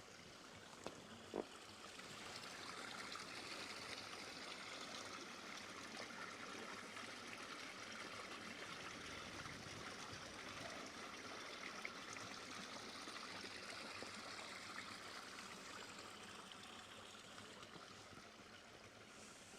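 Faint running water, a steady rush that grows louder over the first few seconds and fades again near the end.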